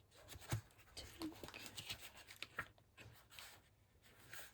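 Faint rustling of paper being handled, with scattered light taps and clicks as a pack of patterned craft paper is opened and sorted.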